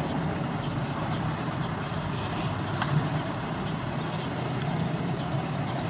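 A steady low mechanical drone in the background, with one brief click about three seconds in.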